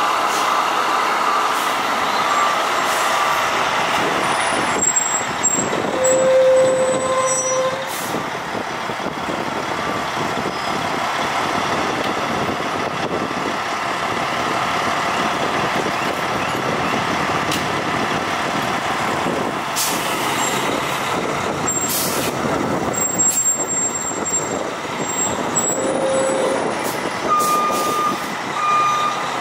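Fire trucks' diesel engines running as they pull out of the station, with short hisses from the air brakes and a brief steady horn-like tone about six seconds in. Near the end a reversing beeper starts, beeping at an even pace.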